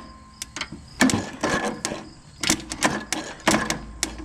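Irregular metallic clicks and clatter in quick clusters as the riding lawnmower is handled, just before it is started.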